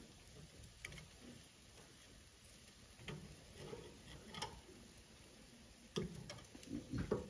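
Metal tongs clicking against the grill grate and chicken drumsticks as the pieces are turned: a few faint, scattered ticks, the loudest near the end.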